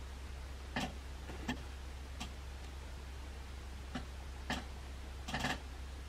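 A handful of sharp, irregularly spaced clicks, the last a quick cluster of several near the end, over a steady low hum.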